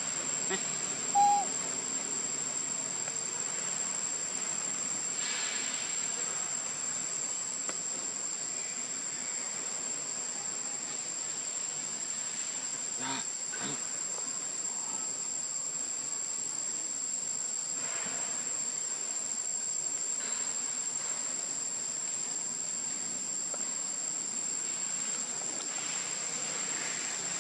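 Steady, high-pitched drone of forest insects that never lets up. A short, sharp chirp stands out about a second in.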